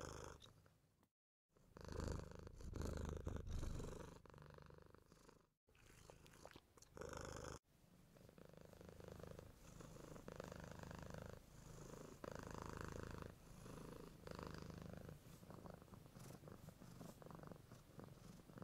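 Domestic cats purring, a low rumble that swells and fades with each breath. It breaks off in short gaps about one, five and a half and seven and a half seconds in.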